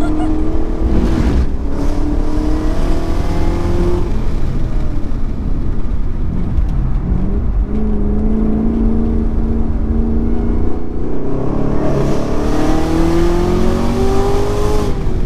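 Chevrolet Camaro ZL1's supercharged 6.2-litre V8 under hard acceleration on track, heard from inside the car. Its pitch climbs over the first few seconds, drops and holds lower through the middle, then climbs again before dropping at the very end.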